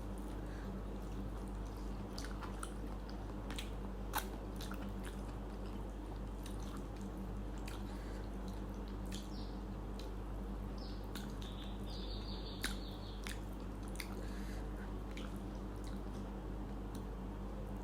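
A person chewing and eating rice and curry, with scattered small mouth clicks and smacks, over a steady low hum.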